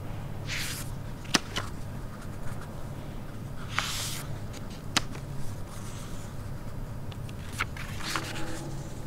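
Quiet library room tone: a steady low hum with a few sharp clicks and short rustles scattered through it, the loudest clicks about a second and a half in and about five seconds in.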